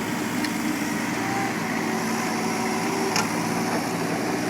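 Mini excavator's diesel engine running steadily, with one short sharp click about three seconds in.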